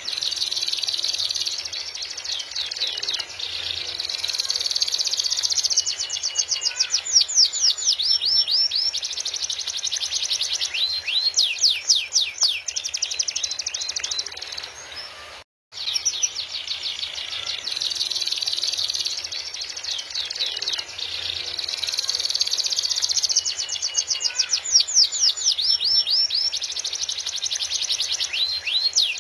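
Canary singing a long, continuous song of rapid trills and fast repeated sweeping notes. The recording cuts out for a moment about halfway through, then the same song starts over.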